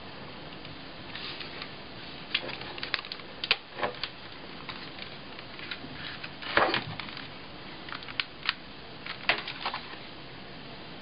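Scattered clicks and knocks from the hard plastic case of a Sharp Mobilion HC-4500 handheld PC as it is handled: the lid shut and the unit turned over in the hands. The loudest knock comes a little past the middle.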